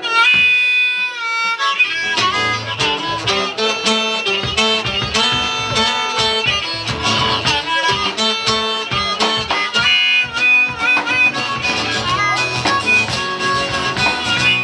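Live band instrumental break: acoustic guitar and drum kit, with a harmonica playing the lead in long, bending notes. The drums come back in about two seconds in.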